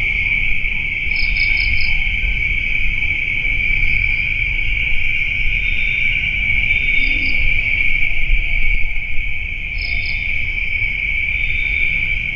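Night insect chorus of crickets: a steady, unbroken high drone, with a few quick higher chirps on top (four in a row about a second in, then pairs later), over a low rumble of background noise.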